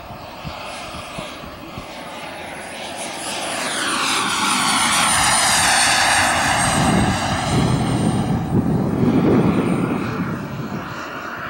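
Small jet turbine of a radio-control model F-16 running as the jet makes a pass: a high whine over a rushing noise swells over a few seconds, peaks as it goes by with the whine dropping slightly in pitch, then eases off near the end.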